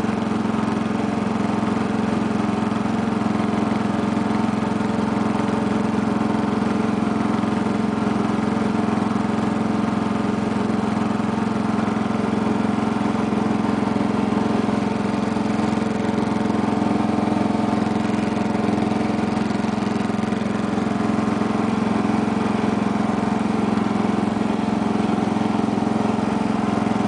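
The 8 hp Briggs & Stratton single-cylinder engine of a 1975 Sears lawn tractor, running at a steady speed as the tractor is driven along.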